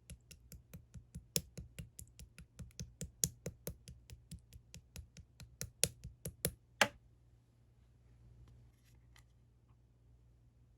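Opaque slime being pressed and worked by hand, giving a fast series of sharp clicking pops, about six a second. The last few pops are the loudest, and the run stops about seven seconds in.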